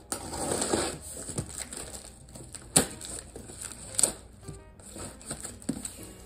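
A box cutter slits the packing tape on a cardboard box, scratchy and rasping for the first second. The cardboard flaps are then pulled open, with two sharp cracks about three and four seconds in.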